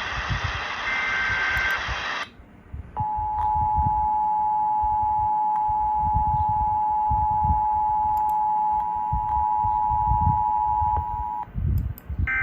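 Emergency Alert System broadcast tones: the last burst of the digital SAME header, a harsh data buzz that ends about two seconds in. After a short pause comes the EAS two-tone attention signal, a steady dual tone held for about eight seconds, which announces an alert message. Low rumbling noise lies under it.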